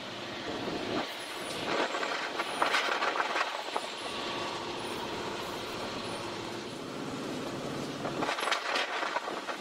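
Diesel locomotive engine running steadily as the locomotive approaches slowly, with two stretches of louder crackling and scraping noise, one starting about a second in and one near the end.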